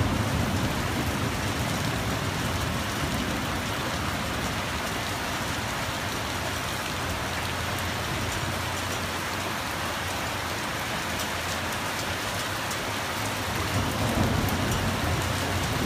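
Steady heavy rain pouring down, with a low thunder rumble dying away over the first few seconds and a brief low swell near the end.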